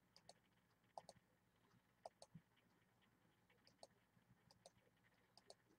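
Near silence with scattered faint computer-mouse clicks, about ten of them at irregular spacing, as the recording is skipped ahead along the seek bar.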